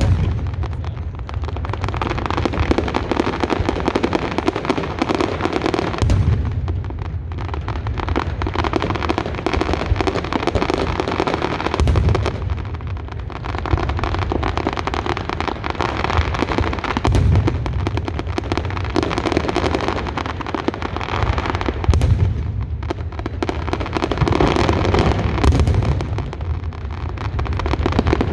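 Fireworks going off in a dense, continuous barrage: rapid crackling and bangs over deep booms, swelling in heavier surges every five or six seconds.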